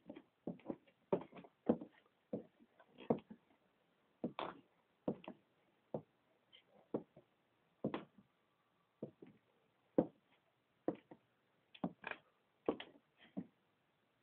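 Heels of very old cowboy boots knocking on a hard floor in an irregular string of sharp steps and scuffs.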